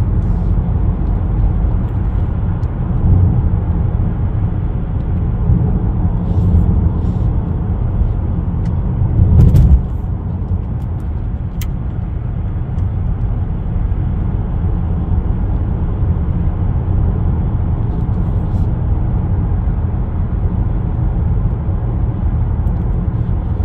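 Steady in-car road and drivetrain rumble of a 10th-gen Honda Accord being driven, with one brief louder low thump about nine and a half seconds in.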